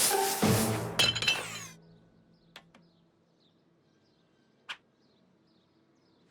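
Cartoon sound effects: a noisy burst cut by a sharp metallic clink and clatter about a second in, dying away by two seconds. After that it is nearly quiet, with faint bird chirps and a couple of small clicks.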